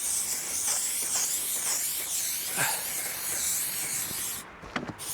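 Aerosol spray adhesive hissing steadily out of the can for about four seconds, then stopping.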